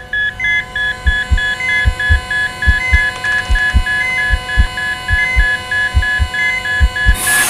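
Designed horror sound effect: rapid electronic heart-monitor beeping over steady tones, with a low double-thump heartbeat about every 0.8 seconds. A loud hiss comes in near the end.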